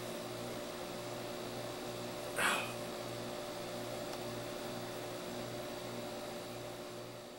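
Steady electrical hum with a slow, regular low pulsing, and one brief hiss about two and a half seconds in; it fades out near the end.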